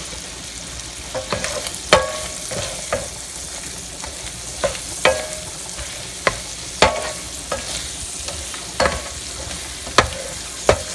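Shrimp sizzling in melted butter in a pan while a wooden spoon stirs them, knocking and scraping against the pan about once or twice a second over a steady sizzle.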